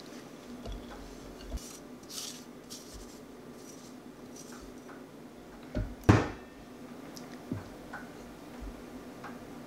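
Crumbly pie dough scraped and tipped from a glass mixing bowl into a bowl on a kitchen scale with a silicone spurtle: soft scraping and sliding with a few light bowl knocks. A sharp knock about six seconds in is the loudest.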